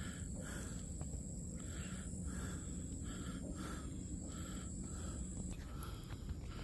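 Tropical forest insects: a steady high-pitched insect whine that cuts off near the end, with rhythmic chirps about twice a second, over a low rumble of wind on the microphone.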